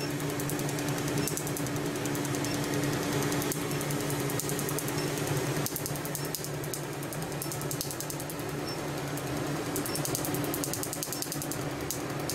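Q-switched tattoo-removal laser firing rapid trains of sharp snapping pulses against the skin, in runs of a second or two with short breaks, over a steady low hum.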